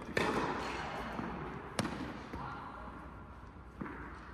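Tennis ball struck by rackets in a doubles rally, echoing in a large indoor tennis hall. There are three sharp pops about two seconds apart, the first the loudest.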